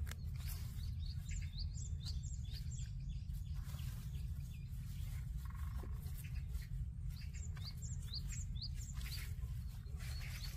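A small bird chirping in quick series of short, rising notes, in two bouts: one in the first few seconds and another after about seven seconds. A steady low rumble runs underneath.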